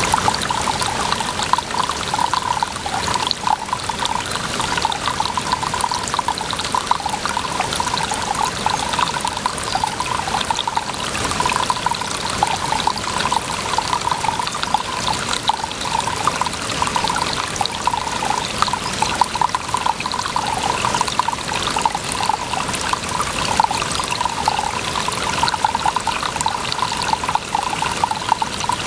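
Water trickling and splashing in a steady, unbroken flow.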